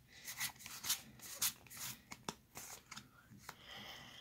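Pokémon trading cards being handled and slid against one another in the hand, a run of short dry rustles and flicks, loudest in the first two seconds.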